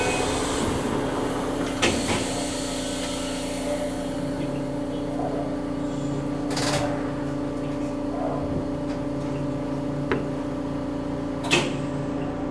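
Electric train's cab while it stands at a station: a steady electrical hum, broken by a sharp click about two seconds in, a short burst of hiss midway, and another sharp click near the end.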